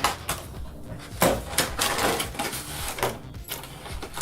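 Handling of a boxed figure: a series of knocks and clicks, the loudest about a second in.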